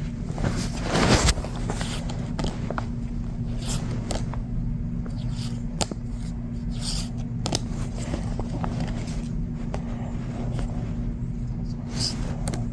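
Pokémon card booster pack being opened and the cards handled: short foil crinkles, scrapes and light clicks, with a louder tearing rustle about a second in, over a steady low hum.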